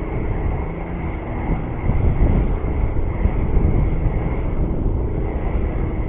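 Strong wind buffeting the microphone in an uneven low rumble, with a faint steady hum underneath.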